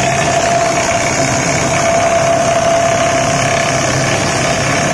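Pneumatic chipping hammer running continuously, its chisel bit hammering rust off a steel plate: a loud, steady rattle with a steady whine running through it.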